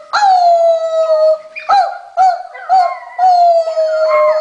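Puppy howling: a long cry that sinks slightly in pitch, three short yelping cries in the middle, then another long sinking cry near the end.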